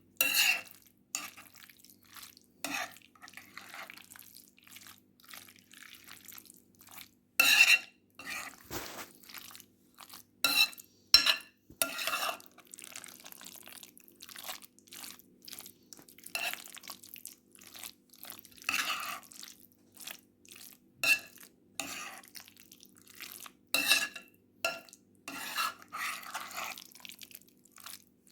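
A spoon stirring marinated olives in a bowl, with irregular wet scrapes and clinks of the spoon against the bowl.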